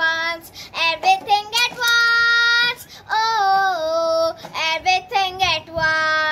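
A young girl singing solo in English, with two long held notes, one about two seconds in and another just after three seconds.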